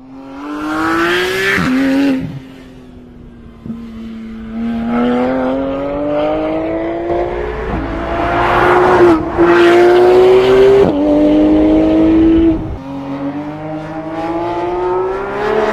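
Porsche 911 GT3 RS's naturally aspirated flat-six accelerating hard through the gears: the engine note climbs, then drops sharply at each of several upshifts. It lets off briefly about two seconds in and pulls again from about four seconds.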